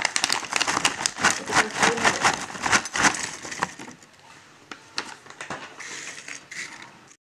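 Triangular Mad Angles chips pouring out of the packet onto a plate: a dense run of crisp clattering and crackling. After about four seconds it thins to scattered clicks as a hand moves the chips about.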